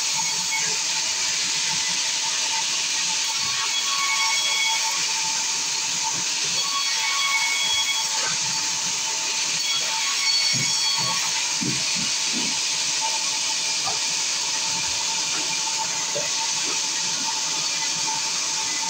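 Large vertical band saw running and cutting through timber planks: a steady, high hiss with a faint steady tone under it. A few low knocks of timber come about halfway through.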